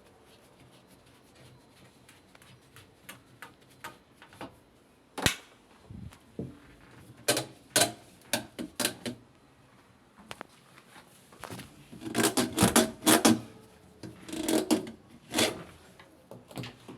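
Irregular clicks, knocks and rattles of washing machine parts and tools being handled. There is a sharp knock about five seconds in and a dense clatter about twelve to thirteen seconds in.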